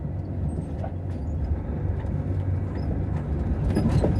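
Vehicle driving slowly on an unpaved dirt road, heard from inside: a steady low rumble of engine and tyres on the rough surface, with a few knocks and rattles from bumps near the end.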